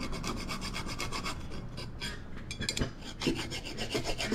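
Hand file rasping back and forth on a scooter clutch part in quick, even strokes, several a second, filing a slot so a slider key will fit.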